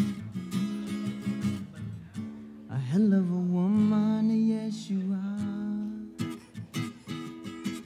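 PRS SE Angelus acoustic guitar strummed in a steady rhythm. About three seconds in, a man's voice joins with a long wordless sung note that swoops up and wavers for about two seconds before the strumming carries on alone.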